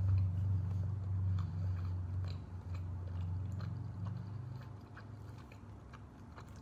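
A person chewing a mouthful of tender rotisserie chicken meat with closed-mouth wet clicks, over a low steady hum that fades about four and a half seconds in.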